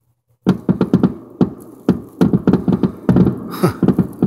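Fireworks finale: a fast barrage of firework bangs, about five a second, starting suddenly about half a second in, with a short hiss midway through the run.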